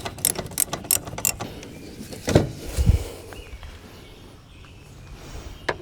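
Socket ratchet clicking quickly, about five clicks a second, while a stubborn engine mount bolt is worked loose. A dull thump follows a couple of seconds in.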